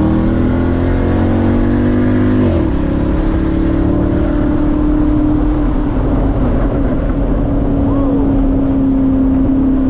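Straight-piped C6 Corvette's LS2 V8 exhaust heard from inside the cabin, pulling with its pitch climbing, then dipping at a gear change about two and a half seconds in. After the shift it settles into a steady, loud drone at highway cruise.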